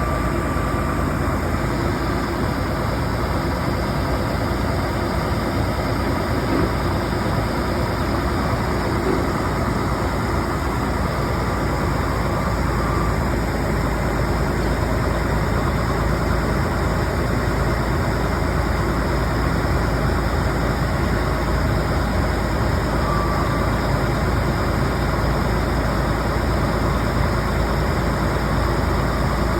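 Water well drill rig's engine running steadily while the rig is being folded down.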